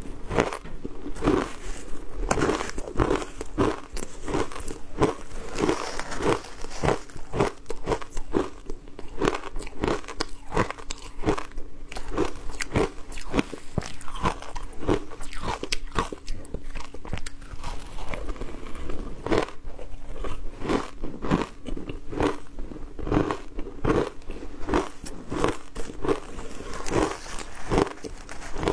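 Crushed ice dusted with matcha powder being bitten and chewed close to the microphone: a long run of crisp crunches, a few each second.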